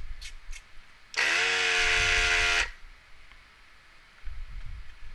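Hakko 808 desoldering gun's built-in vacuum pump switched on for about a second and a half: a motor whine over a hiss of suction, pulling molten solder out of a capacitor's through-hole joint. The pitch rises briefly as the pump starts, and it cuts off sharply. A low rumble follows near the end.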